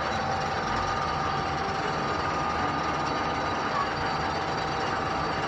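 Machinery running steadily, with a few steady whining tones over an even mechanical noise.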